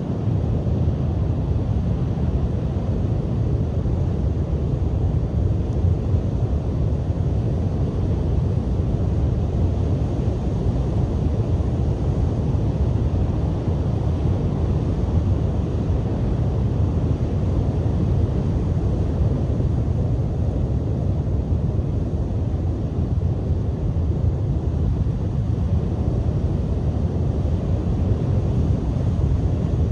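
Strong wind buffeting the microphone in a steady, deep rumble, with the surf of breaking waves mixed in beneath it.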